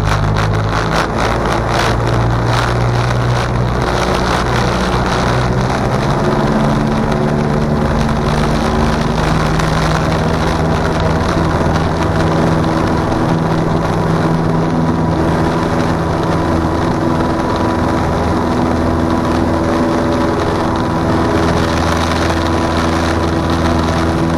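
Cessna 162 Skycatcher's four-cylinder Continental O-200 engine and propeller running at high power during takeoff and climb-out: a loud, steady drone whose pitch shifts a little over the first ten seconds, then holds even.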